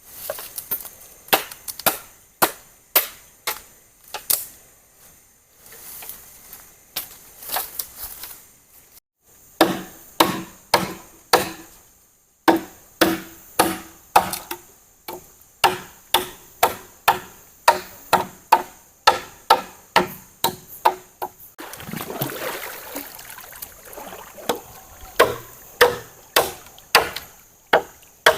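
Bamboo being chopped with a blade: a long run of sharp, regular strikes, about two a second, which carry a hollow ringing tone through the middle stretch. A short rustling rush breaks in about two thirds through.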